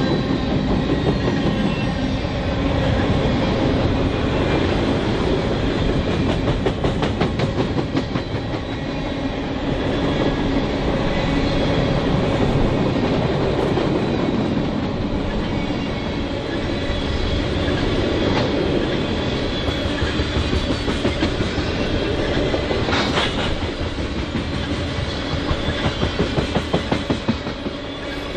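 Freight train cars rolling past on a steady heavy rumble, their wheels clicking in quick rhythmic runs twice, about a quarter of the way in and again near the end.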